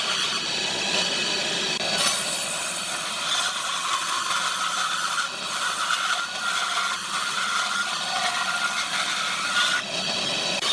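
Power tool working wood: a steady whine over scraping, cutting noise, with the sound changing sharply about two seconds in and again near the end.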